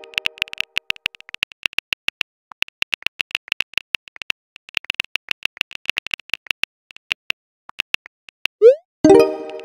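Rapid on-screen keyboard key clicks from a texting-story app as a message is typed, pausing briefly twice. Near the end comes a short rising swoop and a ringing chime as the message is sent.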